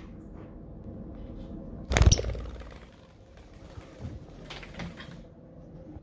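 A sudden loud clatter about two seconds in that dies away within half a second, followed by softer knocks and rustling.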